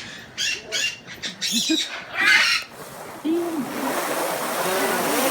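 Pet parrots calling and squawking in short separate calls, with a low drawn-out call about three seconds in. A rising hissing noise then fills the last couple of seconds.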